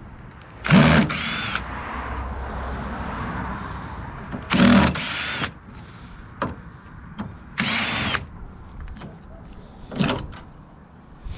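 Cordless power drill run in short bursts, three of them under a second each and a brief one near the end, its motor pitch rising and falling with each pull of the trigger, with clicks between as fittings are worked loose.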